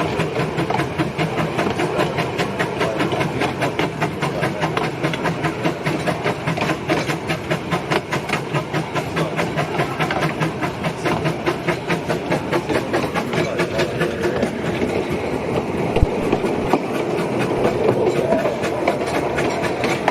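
Narrow-gauge train running with a steady rapid rhythmic beat, about four a second, over a continuous rumble. A single sharp knock comes about 16 seconds in.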